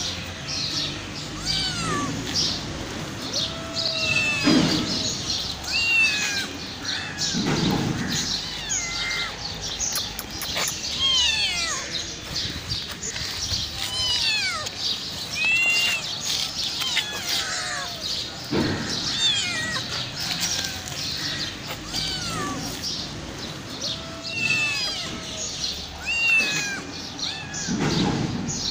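A stray mother cat and her kittens meowing over and over, many short high-pitched calls overlapping one another: hungry cats crying for food. A few low muffled thumps come in between.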